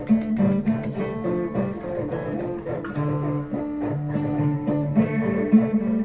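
Guitar music: plucked notes in a higher melody over a lower repeating line.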